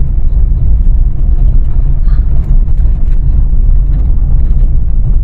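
Steady low rumble of a car's engine and tyres, heard from inside the cabin while the car drives slowly along a road.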